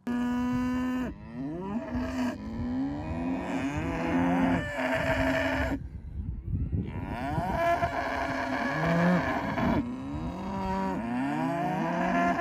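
Murray Grey cattle mooing loudly, several long calls overlapping and sliding in pitch, with a brief pause about six seconds in.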